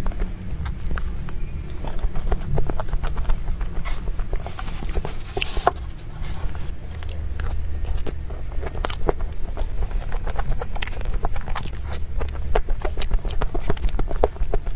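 Close-miked eating: wet mouth clicks and smacks of chewing a soft dessert roll, many quick irregular clicks over a steady low rumble.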